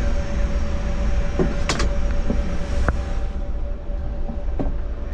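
Steady hum and hiss of the Airbus A350's avionics-bay and cockpit ventilation, with a steady tone, broken by a few knocks and clicks as someone climbs the ladder up through the hatch into the cockpit. The higher hiss drops away about three seconds in.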